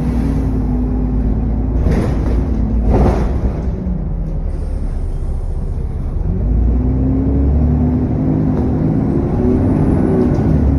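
Bus diesel engine thrash heard on board, with the cooling fan and turbo whine. The engine note falls over the first few seconds, then rises again as it pulls about six and a half seconds in. Two knocks come at about two and three seconds in.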